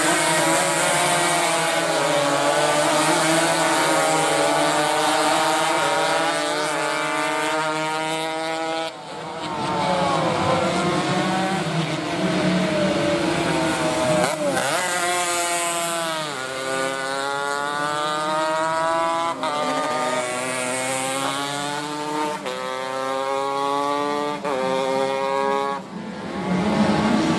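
Small road-racing motorcycle engines revving hard as the bikes accelerate. The pitch climbs through each gear and drops back at every shift, over and over.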